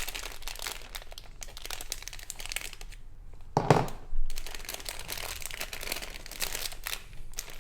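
Plastic and cardboard packaging of a small model kit crinkling and rustling as the box is opened and its contents handled, with a brief dull thump about three and a half seconds in.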